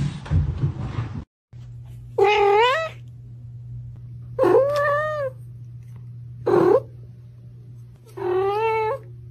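A cat meowing four times, each meow rising in pitch and then holding, the third one short, over a steady low hum. The first second holds other indistinct noise that cuts off abruptly.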